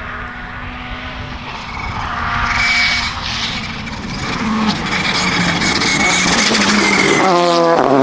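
Volkswagen Polo GTI R5 rally car's turbocharged four-cylinder engine running hard, growing louder over the first few seconds as the car comes closer. Near the end the sound changes suddenly to a steadier, single pitched note.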